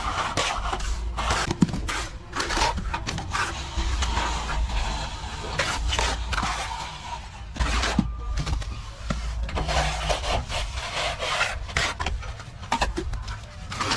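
Plastering trowel scraping and rubbing plaster across a wall in irregular strokes, with a few sharp knocks, over a low steady hum.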